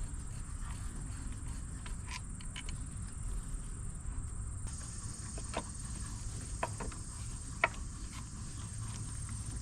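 Scattered light clicks and taps of hand work on car parts, the sharpest about three quarters of the way in, over a steady low background rumble and a faint high hiss.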